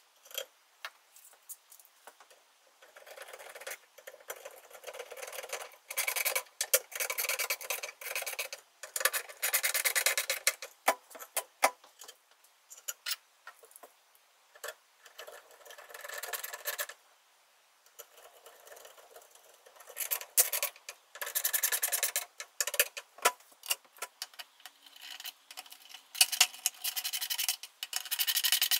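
Hand ratchet screwdriver clicking in repeated bursts of rapid ticks as screws are driven in to fit cabinet handles.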